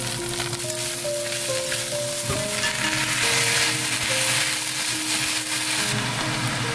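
Hijiki seaweed, carrot strips and fried tofu sizzling in hot oil in an enameled cast-iron pot as they are stir-fried with a wooden spatula; the sizzle is strongest in the middle. Soft background music plays a simple melody underneath.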